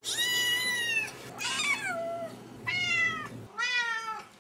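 Domestic cat meowing four times in quick succession, each meow lasting under a second; the second one falls in pitch.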